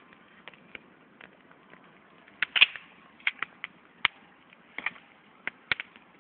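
Wood campfire crackling, with irregular sharp pops, the loudest a few seconds in.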